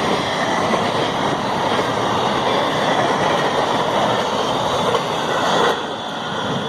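A train rolling past on the rails, a dense, steady rush of wheel and rail noise that eases a little near the end.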